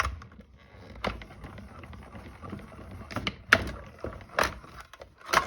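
Small hand-cranked die-cutting and embossing machine rolling a die-and-card plate sandwich through its rollers, with a low rumble and a few sharp knocks and clacks, the loudest a little past halfway.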